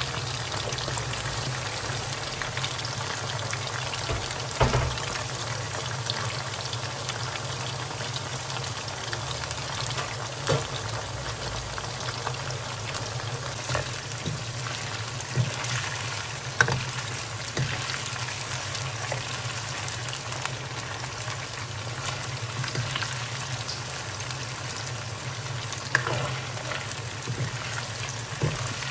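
Beef slices deep-frying in a wok of hot oil: a steady bubbling sizzle. A slotted spatula stirring the pieces knocks against the pan now and then.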